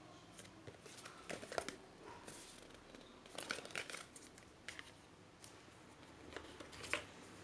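CD album packaging being handled: short bursts of crinkling and rustling with a few sharp clicks, loudest about one and a half seconds in and again near the end.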